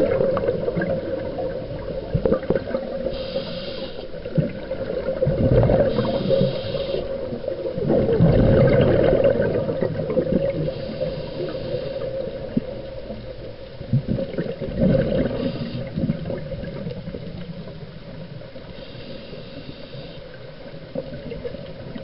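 Water rushing and sloshing past a yacht's hull under way, with irregular gusts of wind buffeting the microphone over a steady hum.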